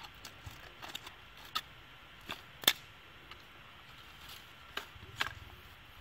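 Dry sticks and brush crackling and snapping as dry sticks are picked up from the grass: scattered sharp cracks, the loudest a little under halfway through.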